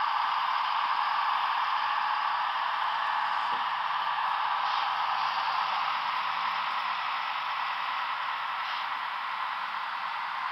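Steady hissy diesel engine sound from HO-scale Broadway Limited GE ES44AC model locomotives with Paragon3 sound, played through their small onboard speakers as they run past, easing off slightly near the end.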